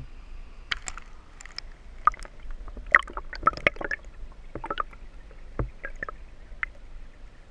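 Water gurgling and plopping against a GoPro held at the waterline, with irregular small pops and drips.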